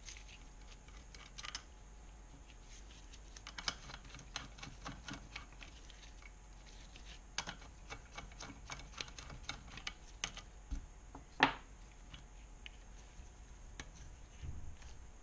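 Light, irregular metal clicks and taps of small engine parts being handled and lifted out of an aluminium motorcycle crankcase half, with one louder click about three-quarters of the way through.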